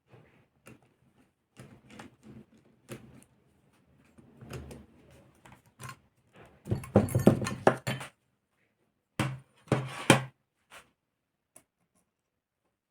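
Clicks, clinks and clatter of tools and small metal engine parts being handled on a table during disassembly of a model aircraft engine, with a louder stretch of clatter about halfway through and another shortly after.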